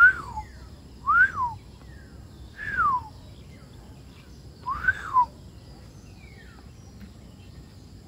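A man whistling a rising-then-falling note four times in imitation of a wild bird's call. Fainter, shorter falling whistles from the bird in the trees come in between.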